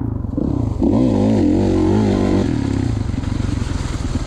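2016 Kawasaki KX450 single-cylinder four-stroke engine revving up and down as the bike is ridden, with a steady hiss coming in about half a second in.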